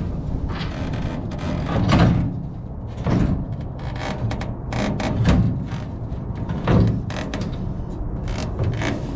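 Irregular knocks and thuds as the fuel transfer tank is shifted in the truck bed so rubber seals can go under it, with the loudest thuds about two, five and seven seconds in.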